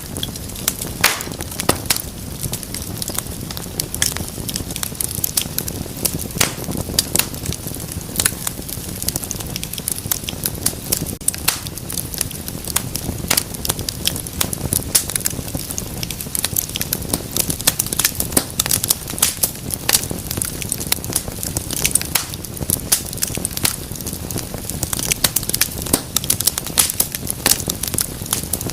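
Wood fire burning in a fireplace: a steady low rush of flames with frequent irregular sharp crackles and pops.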